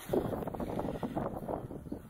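Wind buffeting the microphone, an uneven low rushing that swells just after the start and keeps fluctuating.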